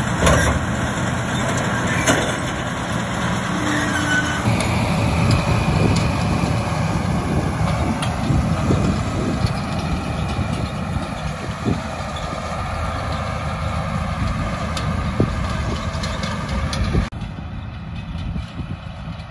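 A classic Ford tractor's engine runs steadily under load, pulling a New Holland 644 round baler whose pickup and drive rattle and click as it bales hay. The sound drops off suddenly near the end, becoming quieter and more distant.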